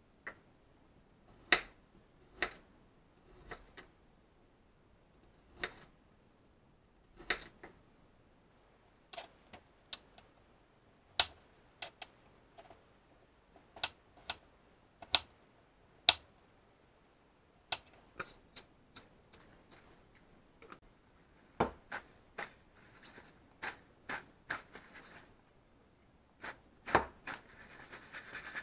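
Kitchen knife slicing whole garlic cloves on a plastic cutting board: separate sharp clicks as the blade meets the board, irregular and coming faster in the second half. Near the end, a rustle and clatter as cut mushrooms are tossed in a stainless steel bowl.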